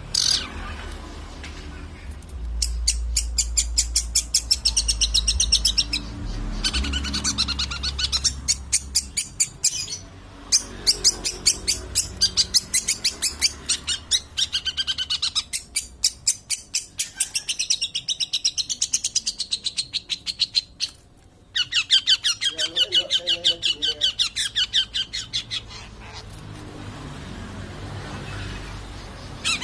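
Long-tailed shrike (cendet) singing in bouts of rapid, repeated high chattering notes lasting several seconds each, with short pauses between them.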